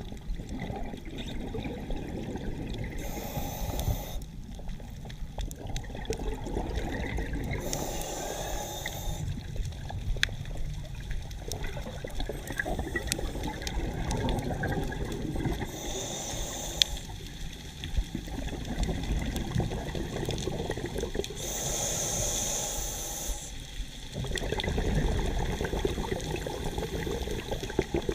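Scuba diver breathing underwater through a regulator: a hiss of inhalation every several seconds, each followed by the bubbling gurgle of exhaled air.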